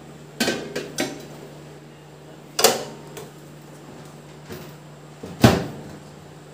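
Metal grill rack clinking a few times as it is set down inside an IFB microwave oven, then the oven door being shut with two loud knocks, the second and loudest near the end.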